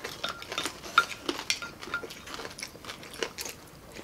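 People eating and sipping hot pork sinigang broth with wooden spoons: scattered soft clicks and knocks of spoons against bowls and plates, with slurps and chewing. One sharper knock comes about a second in.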